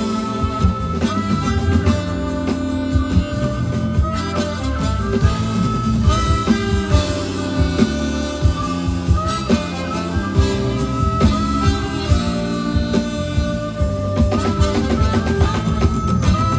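Live band music with electric guitar and drum kit, the guitar playing a melody with sliding notes over a steady beat.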